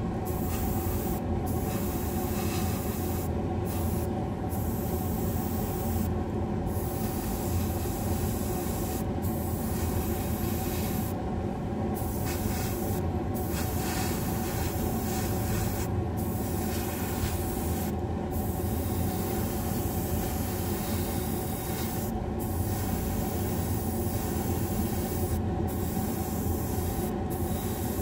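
Airbrush spraying paint with a steady hiss that cuts out briefly every few seconds as the trigger is let go, over the unbroken hum of a spray booth's exhaust fan.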